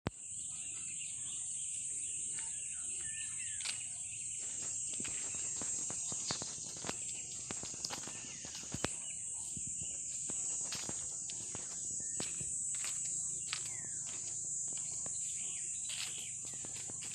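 A steady, high-pitched chorus of insects, with scattered clicks and a few short bird chirps.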